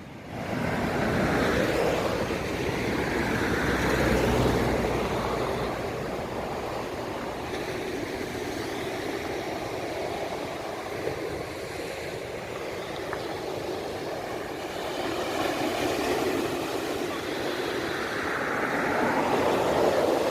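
Sea waves breaking and washing up on a sandy beach, a continuous surf rush that swells loudest near the start and again near the end, with a low rumble underneath.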